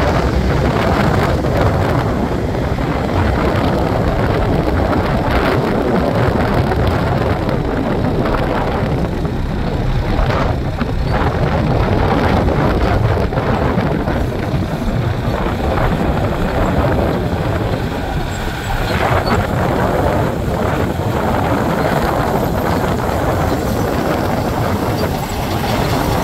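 Komatsu crawler bulldozer's diesel engine running steadily, with scattered clanks and rattles over it.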